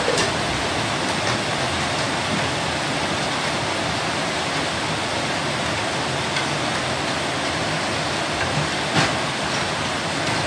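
A steady rushing hiss with a few light clicks, the sharpest about nine seconds in.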